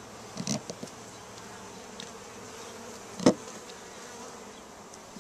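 Honey bees buzzing steadily around the opened colony, with a few short sharp clicks as a scraper blade cuts through the comb against the wooden board, the loudest a little past the middle.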